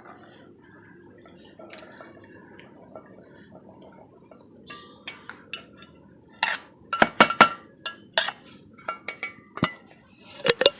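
Metal utensil clinking and knocking against a cooking pot: a few light taps, then a quick run of sharp ringing clinks in the second half and two more near the end, over a faint steady background.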